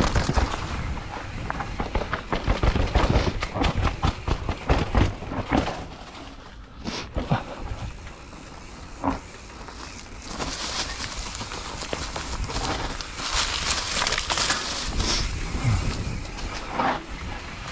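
Mountain bike rolling along a dirt trail thick with dry fallen leaves: tyres crunching and crackling through the leaves, with the bike rattling and knocking over bumps. It eases off for a few seconds midway, then picks up again.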